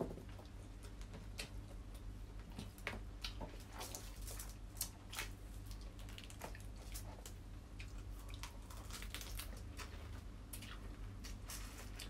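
Close-up mukbang eating sounds: shrimp and crab shells crackling as they are peeled by hand, with wet chewing and smacking, as many short irregular clicks over a low steady hum.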